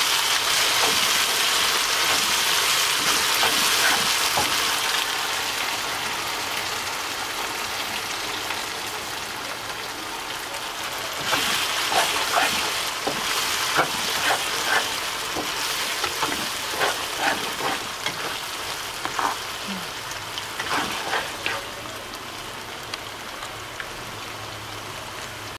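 Blended dried-chili paste with onion pieces sizzling in hot oil in a wok, a steady hiss that is loudest at first and slowly eases off. Through the middle there are many short scrapes and taps of the spatula against the wok as the paste is stirred.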